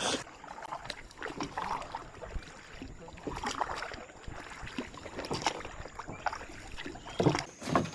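Paddling a canoe: irregular splashes and knocks of paddle strokes in the water, with no motor running.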